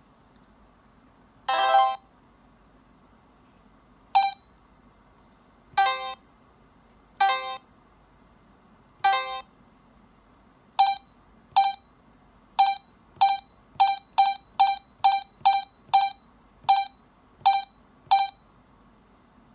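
Electronic beeps from a Korasho children's talking alarm clock: one longer tone about two seconds in, then a run of short beeps, sparse at first and then quicker, up to about three a second.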